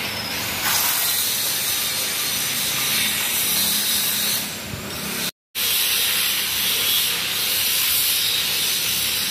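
Steady, loud hissing workshop noise from metalworking, as when metal is ground. It cuts out completely for a moment about halfway through.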